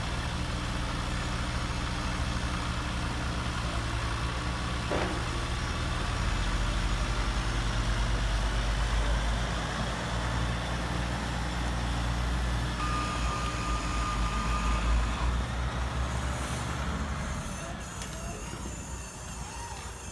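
Steady heavy truck engine sound running, with a held high tone for a couple of seconds past the middle, then dropping away near the end.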